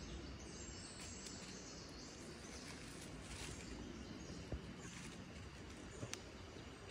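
Quiet forest background of insects and birds, with faint rustles and a couple of small clicks from hands working loose soil and leaf litter.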